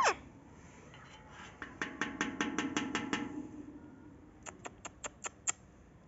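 Rose-ringed parakeet ending a short rising whistle at the very start, then making two quick runs of sharp clicks, about five or six a second: the first about a second and a half in, the second near the end.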